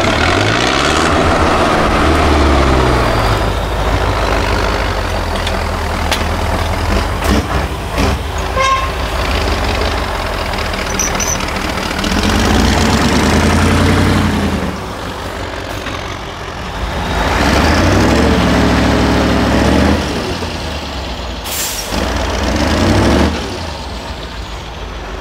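Diesel engines of heavy off-road trial trucks revving hard under load, the pitch surging up and falling back several times. There is a short, sharp hiss about 21 seconds in.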